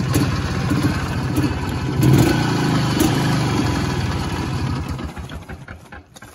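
1980 Izh Planeta 3's single-cylinder two-stroke engine idling, picking up briefly about two seconds in, then running down and stopping as it is switched off near the end.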